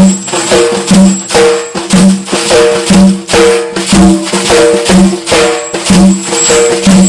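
Instrumental break in Iraqi lament music: a short melodic figure repeats over a steady beat of frame-drum or tambourine strikes, about two beats a second.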